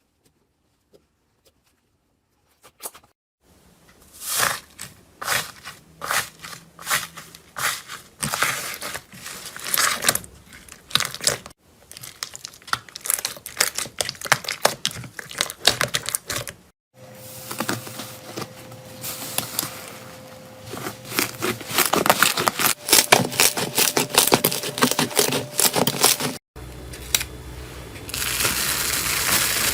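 Slime being squished, poked and stretched by hand, giving dense runs of sticky crackles, pops and clicks. It comes in several short clips that cut abruptly one into the next, after about three seconds of near silence at the start.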